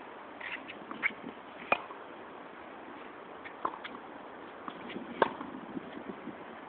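Tennis racket strings striking a ball in a forehand rally: two sharp pops, about three and a half seconds apart, with fainter ball pops between them.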